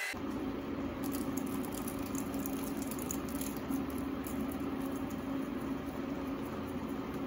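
Seafood cooking in a garlic-butter sauce in a pan, sizzling with faint scattered crackles over a steady low hum.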